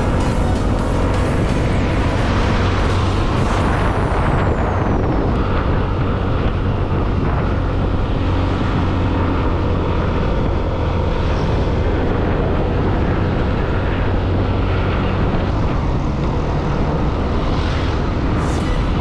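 Motorcycle engine running steadily while cruising, with wind and road noise on the microphone, under background music.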